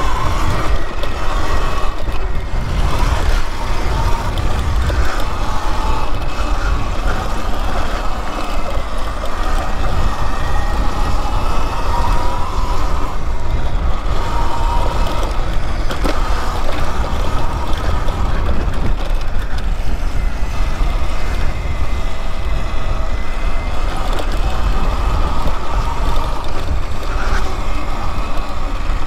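Riding an electric dirt bike on a dirt trail: heavy wind buffeting on the microphone, with the electric motor's thin whine rising and falling in pitch as the speed changes.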